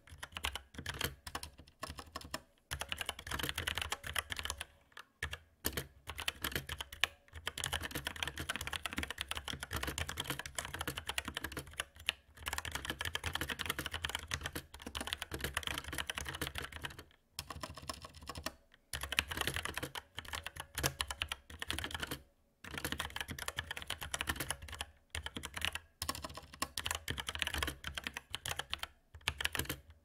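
Fast, continuous typing on a Velocifire TKL02WS tenkeyless mechanical keyboard with Outemu Brown tactile switches, a dense patter of key clacks that pauses briefly every few seconds.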